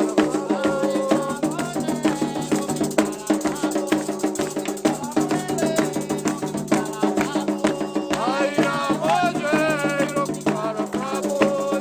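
Candomblé ritual music: drums and rattles keep a dense, steady rhythm, and voices sing over it near the start and again from about eight seconds in.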